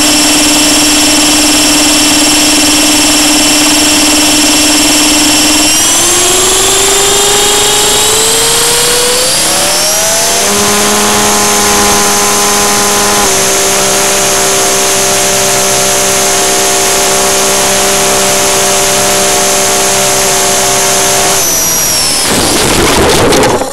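Blade 300X electric RC helicopter's brushless motor and rotor heard close up from a camera mounted on the airframe: a steady whine that spools up in pitch between about six and ten seconds, then holds a steady high whine. Near the end the tone drops away and a loud rough clatter follows as the helicopter goes over and its carbon blades strike the ground.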